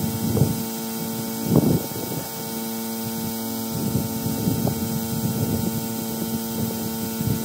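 Air compressor running with a steady hum while compressed air hisses through a pneumatic vacuum bleeder that is drawing old, dark fluid out of the clutch slave cylinder through its open bleeder valve. A few short, irregular bursts of lower sound rise over the steady noise, the loudest about a second and a half in.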